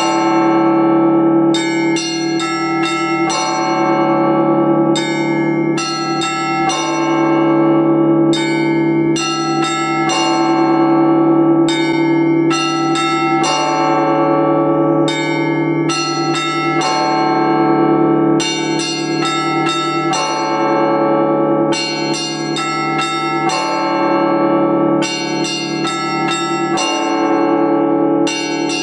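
Russian Orthodox church bells rung by hand in the Rostov tradition: quick repeating groups of strikes on the smaller bells over a low bell tone that hums steadily underneath.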